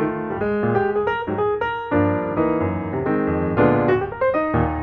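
Background piano music: a quick melody of short notes over chords.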